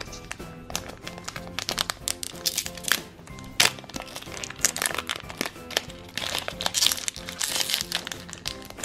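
Foil wrapper of a Shopkins collector card pack crinkling as it is opened and handled, busiest near the end, over background music.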